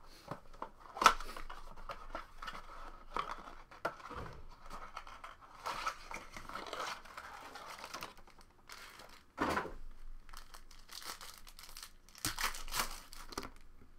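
Trading-card blaster box being opened by hand: cardboard handled and plastic wrap and foil card packs crinkling and tearing. Irregular rustles and sharp clicks, the loudest about a second in, with another flurry near the end.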